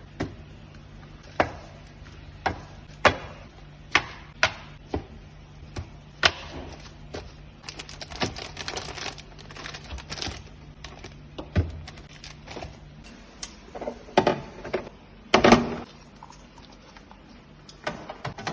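Irregular clicks, knocks and clatter of objects being handled and set down, with a denser rattle in the middle and a louder knock near the end, over a low steady hum that stops about two-thirds of the way through.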